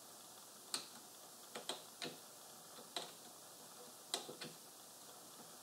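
Faint, irregular metal clicks and light knocks from a Grizzly G0768 lathe's compound rest being wiggled by hand on its swivel plate to line up the brass dowel pins in the new dovetail mount.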